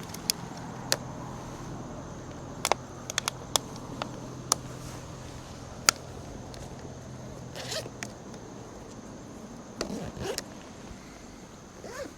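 Scattered sharp clicks, ticks and a few short scrapes of gear being handled by hand, over a steady high insect buzz and a low steady hum.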